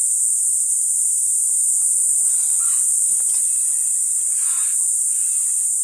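Loud, steady, high-pitched insect chorus droning without a break.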